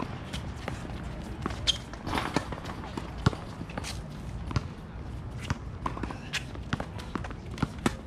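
Tennis balls being struck by racquets and bouncing on a hard court: a string of sharp, irregular pops, the loudest about three seconds in, with scattered footsteps.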